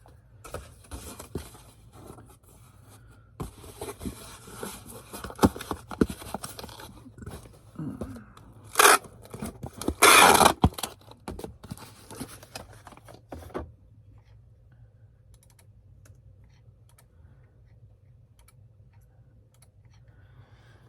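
Handling of a sold CD order and its packaging: rustling, scraping and crunching, with clicks and two short, loud rips about nine and ten seconds in. The handling stops about thirteen seconds in, leaving only a low hum.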